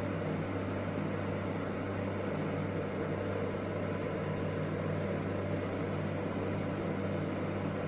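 Electric fan running with a steady whir and a low hum.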